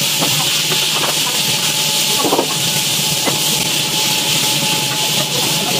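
Food sizzling in the hot rotating drum wok of an automatic stir-fry machine: a steady hiss with a faint steady machine whine under it and a few light clicks as the food is tossed.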